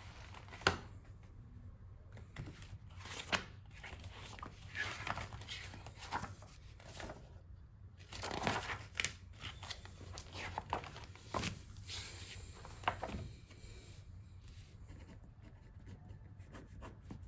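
Paper pages of a spiral-bound notebook being flipped and turned, a run of crisp rustles and flicks. Near the end the page sounds stop, leaving faint light pen strokes on paper.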